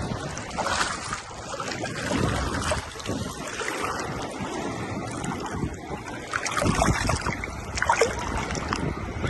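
Small sea waves lapping and splashing at the shore, with wind rumble on the microphone.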